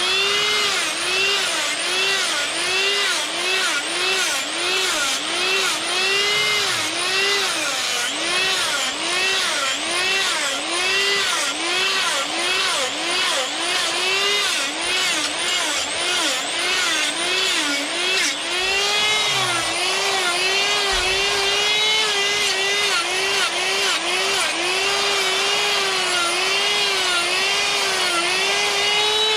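Die grinder with a sphere burr running at high speed and cutting fur lines into a wood bear carving. Its whine drops in pitch and recovers about one and a half times a second as the burr bites into the wood with each stroke, and it runs steadier with shallower dips later on.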